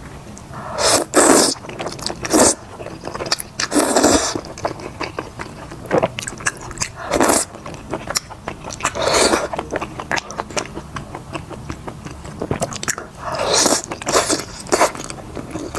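Close-miked eating of big-plate chicken with wide noodles: several loud slurps of noodles, each about a second long, with wet chewing and mouth clicks between them.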